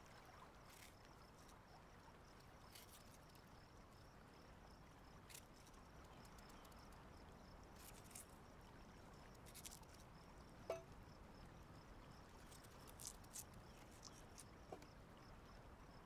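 Near silence: faint outdoor ambience with a thin, steady high-pitched hiss and a few soft ticks.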